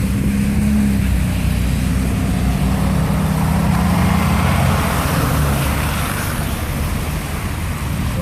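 A motor vehicle's engine running, a steady low hum that dips slightly in pitch about five seconds in.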